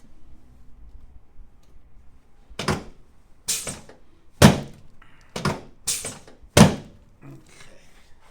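Six sharp thuds over about four seconds, the two loudest near the middle and the end: quick chiropractic thrusts working up a patient's spine as she lies face down on the adjusting table.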